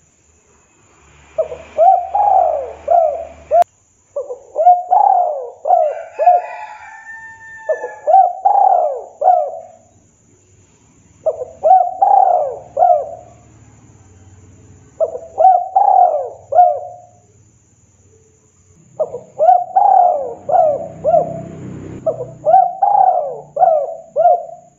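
Spotted dove (tekukur) cooing: a repeated series of phrases, each a quick run of four or five coos, about seven phrases with short pauses between them.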